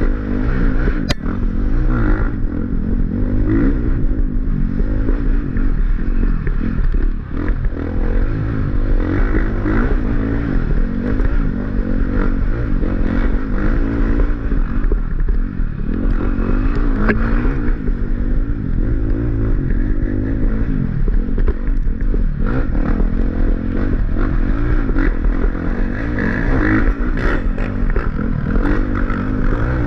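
Off-road dirt bike engine revving up and down continuously as the bike is ridden hard over rough trail, with clattering and scraping from the bike and ground, heard close from a helmet camera.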